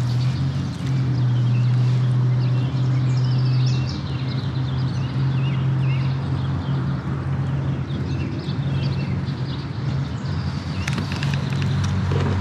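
A steady low hum, loud and unbroken, with faint bird chirps above it and a few sharp clicks near the end.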